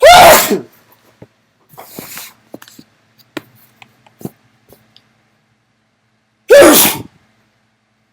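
Two loud sneezes from a man, one right at the start and another about six and a half seconds in, each a short cry that falls in pitch. Soft breathing noises and small clicks in between.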